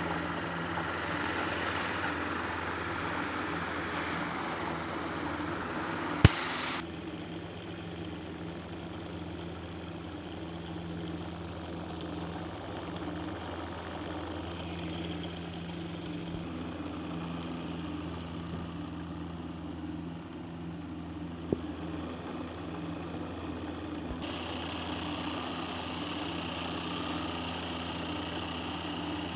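Small electric motor on a homemade toy tractor driving a belt-driven model wheat thresher, running with a steady whir and hum. There is a sharp click about six seconds in, and a higher-pitched whine joins near the end.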